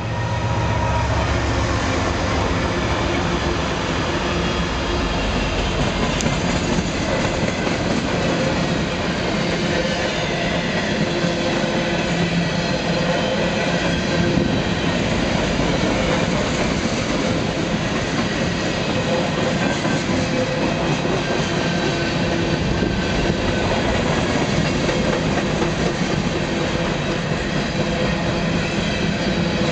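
Empty grain train passing close by: its diesel locomotives (an ES44DC, a C44-9W and an SD60M) go by in the first couple of seconds, then a long string of empty covered hopper cars rolls past with steady wheel-on-rail noise.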